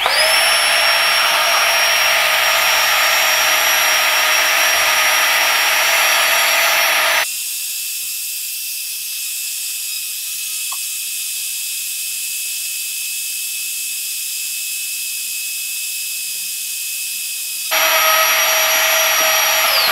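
Miniature battery-powered air pumps (Flextail Tiny Pump and Tiny Pump 2X) inflating a sleeping pad: the motor spins up at once into a steady high whine over rushing air. About seven seconds in the sound drops suddenly to a quieter, lower hum, and about eighteen seconds in it jumps back to the loud whine. Near the end the whine slides down in pitch as a pump winds down with the pad full.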